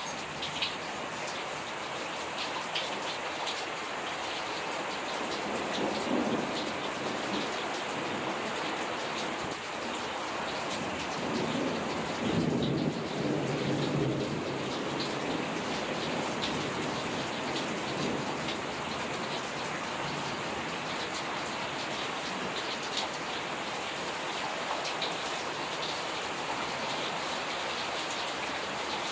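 Steady rain falling in a thunderstorm. Thunder rumbles about six seconds in and again, louder, for a few seconds near the middle.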